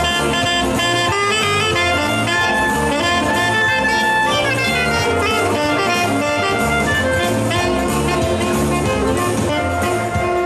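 Tenor saxophone and clarinet playing an upbeat, jazzy gospel tune together over a steady bass line.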